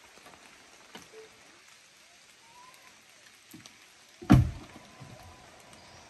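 Faint patter of water dripping off wet trees onto leaves, with a single loud thump a little past four seconds in.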